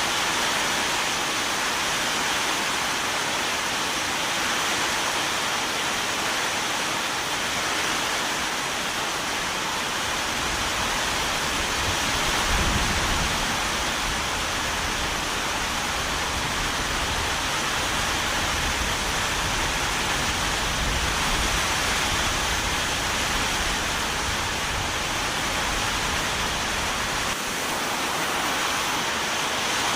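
Steady heavy rain, an even hiss. A low rumble comes in about a third of the way through, is strongest shortly after, and stops abruptly near the end.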